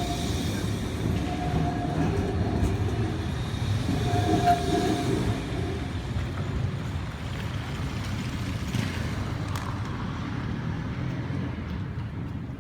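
Low, steady rumble of a heavy vehicle going by, with a faint tone that comes and goes, easing off after about six seconds and fading near the end.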